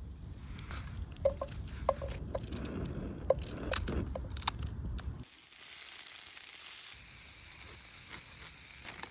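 Food sizzling in a pan over a campfire, with scattered crackles and sharp pops. The sound changes abruptly twice, after about five seconds and again about two seconds later, into a thinner, quieter hiss.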